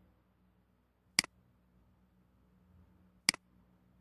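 Two sharp computer mouse clicks about two seconds apart, over a faint low hum.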